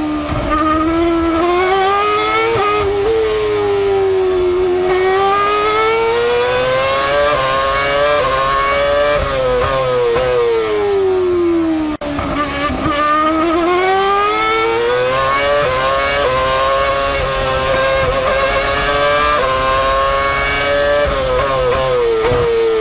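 Ferrari F2012 Formula One car's 2.4-litre V8 heard from the onboard camera, revving up through the gears in short climbing steps and dropping away steeply under braking for corners several times. The deepest fall comes about twelve seconds in, before the revs climb again.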